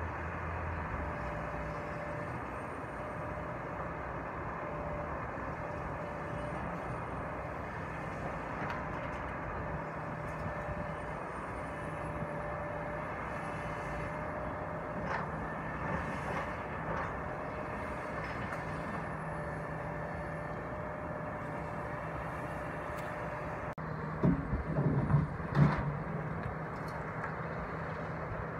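Kobelco SK350 excavator's diesel engine running steadily under load while it demolishes a structure, with a few faint knocks midway. Near the end comes a short burst of heavy thumps and clatter, the loudest sound here.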